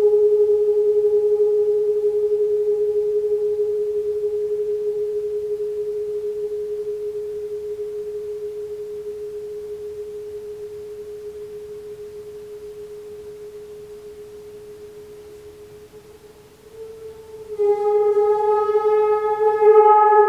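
A single sustained ringing tone, steady in pitch, fades slowly for about sixteen seconds. Near the end a new tone at almost the same pitch swells in, louder and bright with many overtones.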